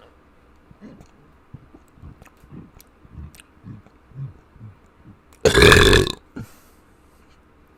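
A person burping: one loud burp lasting about half a second, about five and a half seconds in, after a run of soft, short, low sounds.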